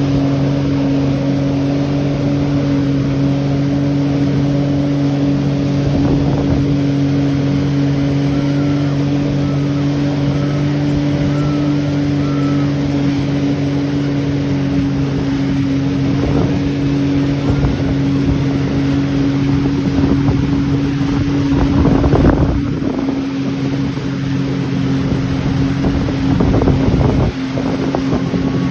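Motorboat engine running steadily at a constant pitch, with wind and water noise over it; a louder rush of noise comes about three-quarters of the way through.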